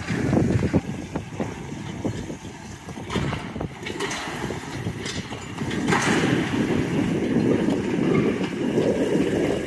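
Electric towing robot pulling a train of steel-frame wagons over gravel: an uneven low rumble and rattle of wheels and hitches, growing louder about six seconds in.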